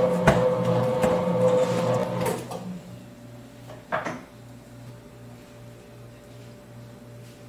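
Commercial dough mixer running as its hook kneads bread dough in a stainless-steel bowl. For the first two seconds the motor is louder with a steady whine. It then settles to a quieter low hum that pulses about three times a second, with a single knock about four seconds in.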